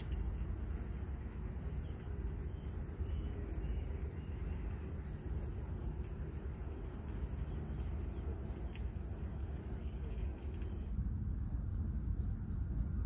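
An insect's high-pitched, steady trill, pulsing about twice a second, which stops about eleven seconds in, over a low steady outdoor rumble.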